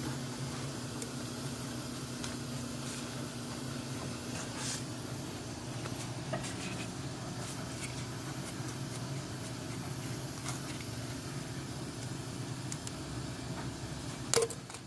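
A steady low mechanical hum with a few faint ticks of tools being handled, and a sharp knock near the end.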